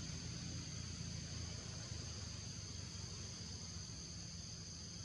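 Steady chorus of insects, held at a constant high pitch, over a steady low rumble.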